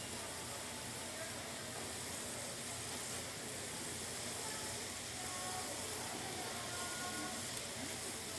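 Tteokgalbi patties of minced beef frying on a flat steel griddle, with a steady sizzle.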